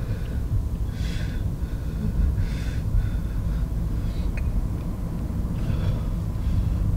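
A steady low rumble with a person's sharp, breathy exhales about one, two and a half, and six seconds in.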